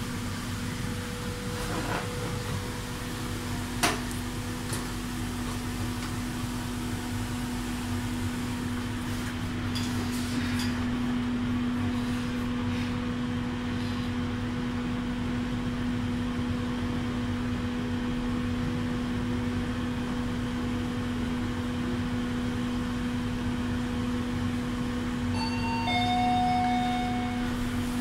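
Glass passenger elevator car humming steadily as it rides up, a low even hum, with a couple of sharp clicks in the first few seconds. Near the end a short two-note electronic chime sounds.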